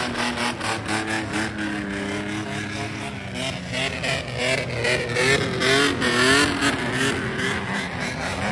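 Loud-exhaust car engines running together. For the first few seconds they are held at a steady rev; then, from about three seconds in, they are revved up and down in quick repeated throttle blips, with sharp crackles throughout.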